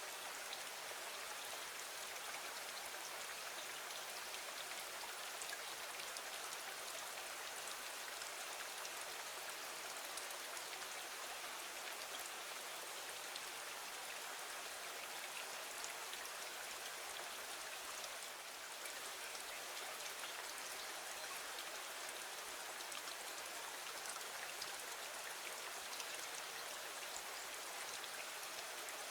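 Steady rain falling against a window: an even hiss peppered with many small drop ticks.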